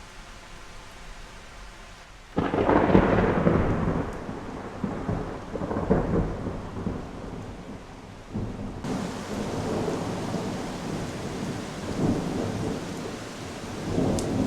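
Thunderstorm: steady rain with a sudden peal of thunder about two seconds in that rolls on for several seconds, then more rumbles of thunder. The rain grows heavier about halfway through.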